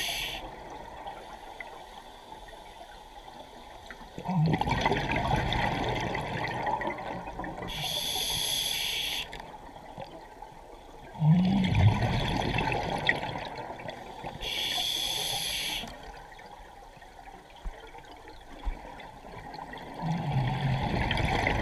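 Scuba regulator breathing heard underwater. A hissing inhale comes twice and a longer gush of exhaled bubbles three times, in a slow steady rhythm.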